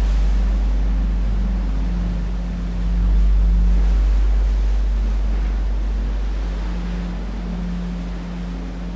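A loud, deep electronic bass drone, steady and without a beat, swelling a little about three seconds in and easing off toward the end. A quieter humming tone above it fades out early and comes back in the last couple of seconds.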